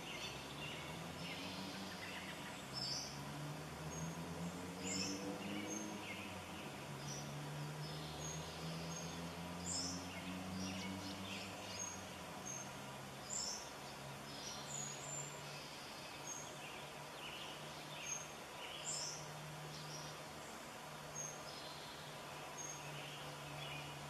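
Small forest songbirds chirping in short, scattered calls. A low background drone shifts in pitch for the first half, then holds steady.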